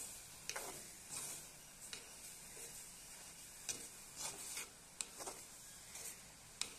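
A spoon stirring cabbage and potato curry in a clay pot: short, irregular scrapes and sharp clicks against the pot, over a faint steady hiss.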